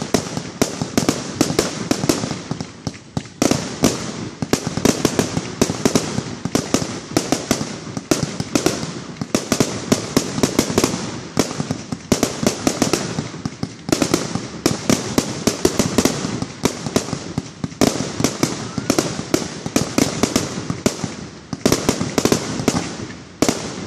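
Fireworks going off in a dense, rapid barrage of bangs and crackling, many reports a second, with only brief lulls every few seconds.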